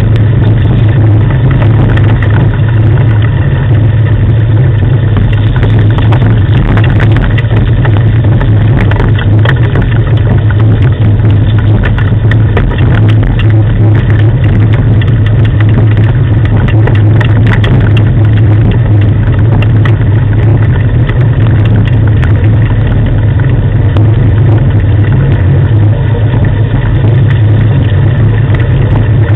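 Loud, steady low rumble from the rig that a sled dog team is pulling along a gravel track, with faint scattered ticks and rattles.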